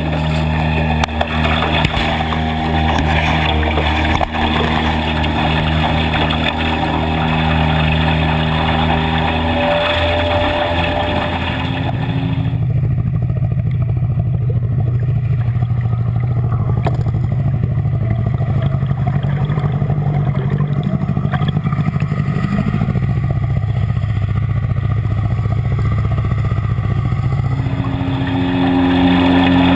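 An engine running steadily with a droning hum. About twelve seconds in the sound changes: the higher part drops away and a deeper, rougher hum takes over. Near the end it changes again to a clearer, higher-pitched drone.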